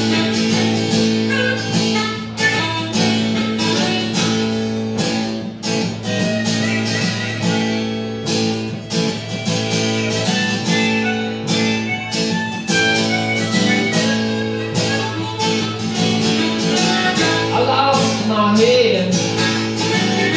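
Acoustic guitar strumming a steady rhythm under a harmonica played into a hand-held microphone and amplified, an instrumental break between sung verses.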